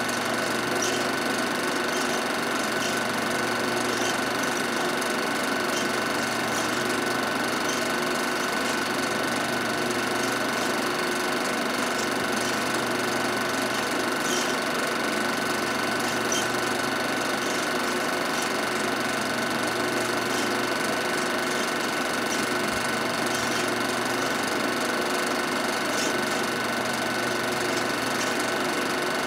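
Film projector running steadily, a constant mechanical whir from its motor and film transport.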